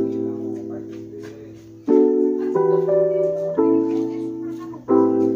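Background music: held keyboard chords, a new chord struck about every second and fading between strikes.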